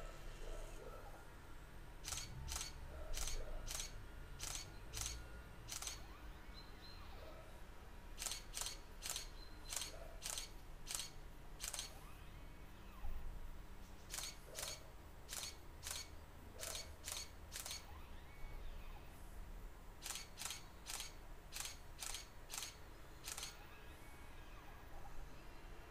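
Canon 550D DSLR shutter firing in four quick bursts of about seven clicks each: seven-frame exposure bracketing for each panorama position, with short pauses between the bursts.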